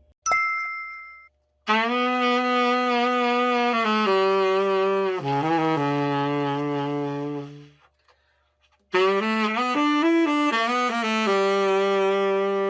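Burden V-45 tenor saxophone, freshly overhauled, played in two short passages of long held notes in its low-middle register with a few note changes, separated by a pause of about a second. A brief ringing metallic chime sounds at the very start.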